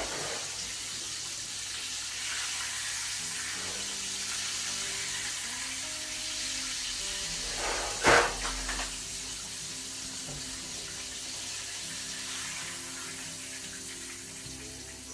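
Breaded chicken fried steak frying in hot oil in a skillet: a steady sizzle, with one sharp metal clack of tongs against the pan about eight seconds in.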